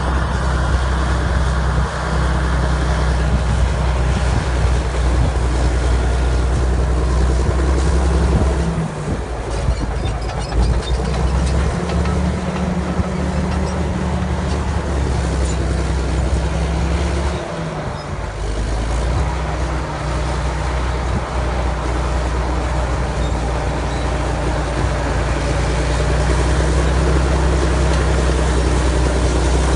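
1979 Caterpillar D8K crawler dozer's diesel engine running hard while pushing a blade-load of dirt. The engine note dips and changes briefly around nine seconds and again around eighteen seconds.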